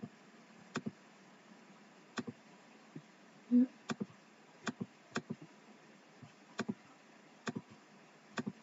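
Computer mouse clicking, mostly in quick double clicks about once a second. A brief low hum a little before halfway is the loudest sound.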